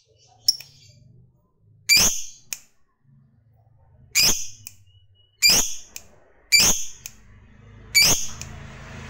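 Caged lovebird giving short, sharp single calls, about six of them spaced a second or two apart, with a faint low hum underneath between calls.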